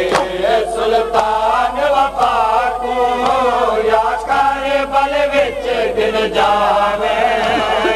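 A group of men chanting a noha in long, wavering held notes, with the sharp slaps of matam (chest-beating) keeping rough time.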